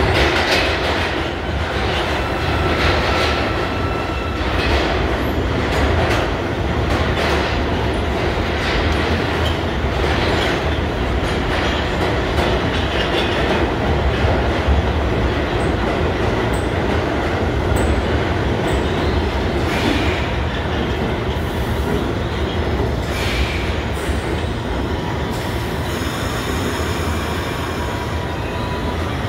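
New York City subway train moving through an underground station: a steady heavy rumble, with wheels clicking over the rail joints again and again.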